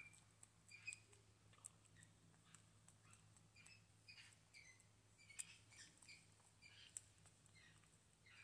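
Java macaque grooming at close range: faint, irregular small clicks and smacks of her lips and tongue as she picks through hair.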